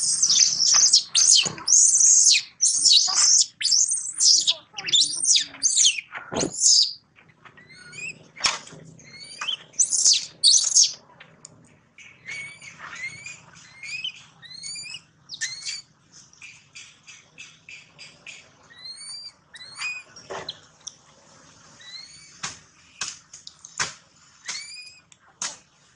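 Baby macaque crying in high-pitched squealing distress calls, loud and almost continuous for roughly the first ten seconds, then shorter repeated chirping cries.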